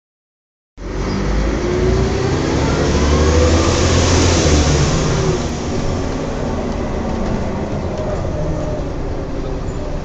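Volvo Olympian bus running, heard from inside the passenger saloon, with a pitched whine that rises over the first few seconds as the bus gathers speed and then levels off: the strange noise from the rear axle differential.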